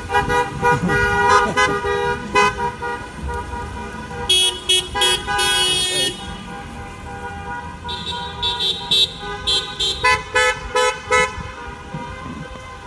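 Car horns honking over and over from a line of passing cars in a drive-by parade: many short toots, a louder, brighter series about four to six seconds in, and a run of quick beeps later on.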